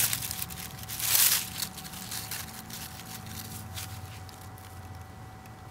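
Rustling and scraping handling noises, loudest about a second in and then fading, over a faint steady hum.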